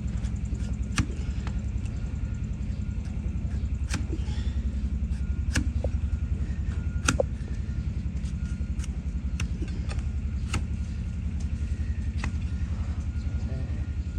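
An engine running steadily at idle, a fast even low pulsing, with sharp clicks every one to three seconds.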